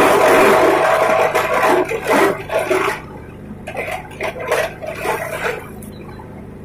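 Grass chopper machine running loud and noisy, its rushing sound dropping away about three seconds in, leaving quieter irregular rustling and knocks.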